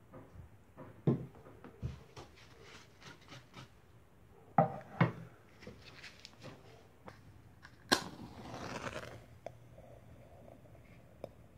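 Tin cans of a homemade fog machine knocking and scraping as they are handled and set on a wooden floor, with a few sharp knocks. About eight seconds in, a match is struck with a sharp click and flares with a hiss that lasts about a second.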